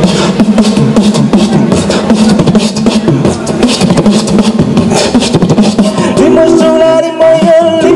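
Beatboxing into a handheld microphone: rapid percussive mouth clicks and snare-like bursts over a low hummed tone. About six seconds in, this gives way to held sung notes.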